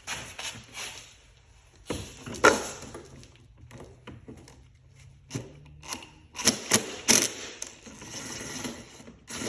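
Hand socket ratchet on a 10 mm socket with extensions clicking as throttle body bolts are loosened, with sharp clinks of metal tools. A denser run of quick ratchet clicks comes near the end.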